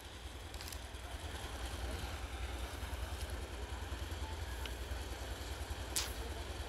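Low, steady engine rumble, with a single sharp click near the end.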